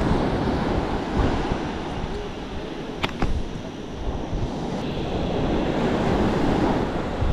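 Surf breaking and washing up a sandy beach, a steady rushing noise with wind buffeting the microphone. A couple of brief sharp clicks come about three seconds in.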